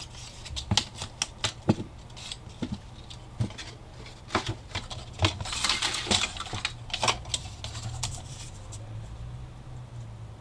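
Clicks and taps of a plastic Fiskars paper trimmer and cardstock strips being handled and set down on a cutting mat, with a short papery rustle about six seconds in as a strip is slid into place on the trimmer.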